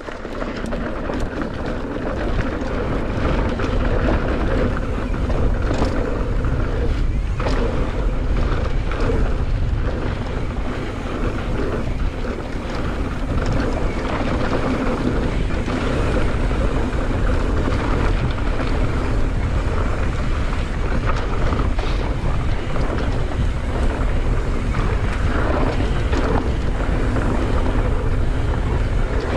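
Wind rushing over the microphone and tyres rolling over loose trail dirt as a mountain bike descends, with a few brief knocks along the way.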